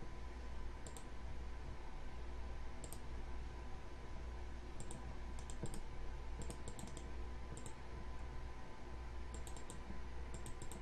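Computer mouse button clicking at irregular intervals, roughly once a second and often as quick double clicks, as objects are picked on screen. A steady low hum sits underneath.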